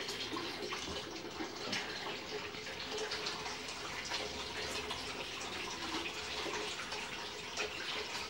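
Kitchen tap running steadily, the stream splashing into a plastic container in the sink.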